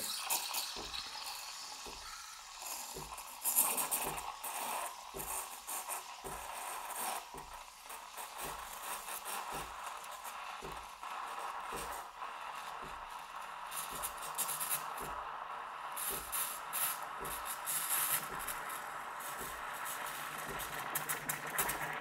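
Steam wand of a Breville All In One coffee machine frothing milk in a stainless steel jug: a steady hiss with irregular crackles as the steam bubbles through the milk, heating it.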